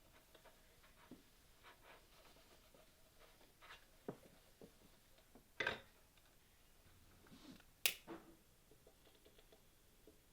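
Scattered light knocks and clicks of small household objects being handled, with two sharper knocks a little past halfway and about three-quarters of the way through.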